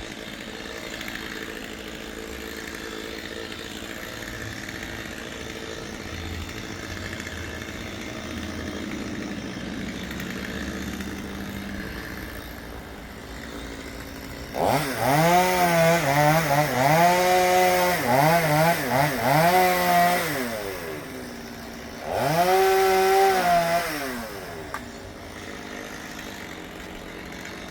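Chainsaw running at a low idle, then revved up to full speed about halfway in for about six seconds, its pitch wavering as it cuts, before dropping back. A second, shorter burst of about two seconds follows, and then it settles back to idle.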